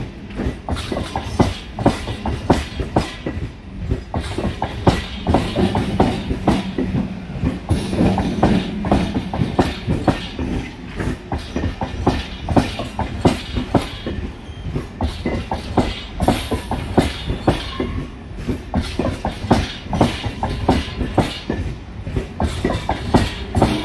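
MMTS electric suburban train passing close by, its wheels clattering rapidly over the rail joints, with a steady low hum underneath.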